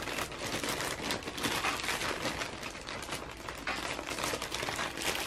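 Clear plastic poly bag crinkling and crackling as hands pull it open and handle the t-shirt inside, a close, irregular rustle that goes on without a break.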